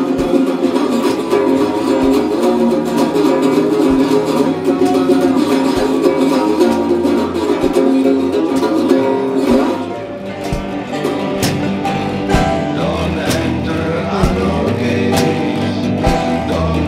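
Guitar music: a plucked, strummed guitar playing steadily, the arrangement changing about ten seconds in with a stronger bass.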